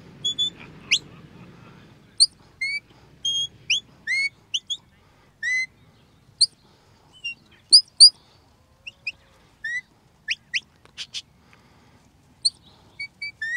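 Shepherd's sheepdog whistle blown in a string of short, rising whistle notes, the commands that direct a working sheepdog around sheep. About ten seconds in come two quick, sharp upward sweeps.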